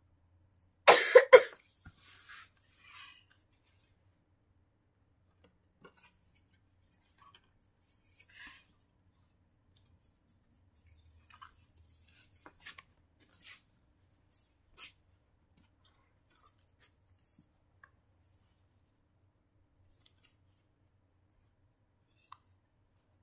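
A person coughs, two or three quick coughs about a second in, the loudest sound. After that come only faint scattered rustles and light taps as plush toys are handled.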